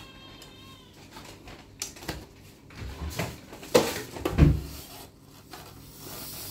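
The hinged metal lid of an electric roti maker is handled and brought down onto a chapati, giving a sharp knock and then a heavier clunk a little past the middle as it shuts.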